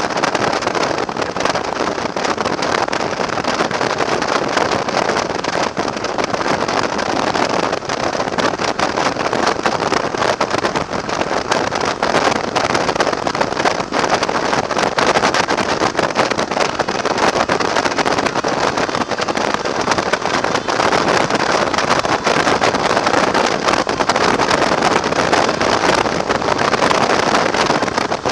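Steady wind rush and road noise from a motorcycle cruising at highway speed, heard through a camera mounted on the bike, with wind buffeting the microphone.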